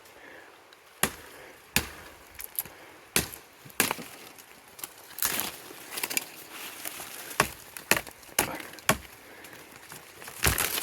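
A forged knife hacking through rhododendron branches: a string of sharp, irregular chops and snaps of wood, some less than a second apart.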